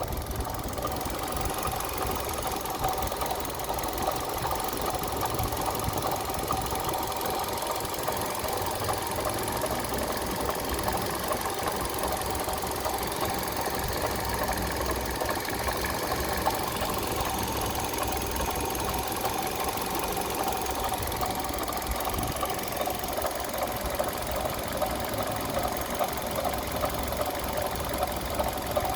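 Third-generation Kia Rio's four-cylinder petrol engine running steadily with a rapid, even knocking.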